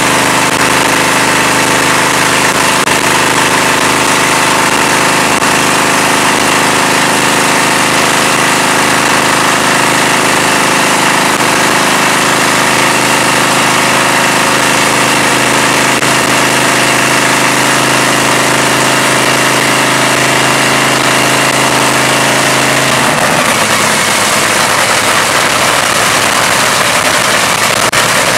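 Top Fuel dragster's supercharged nitromethane V8 idling loud and steady during a pit warm-up. About 23 seconds in, the steady note changes abruptly to a rougher, noisier sound.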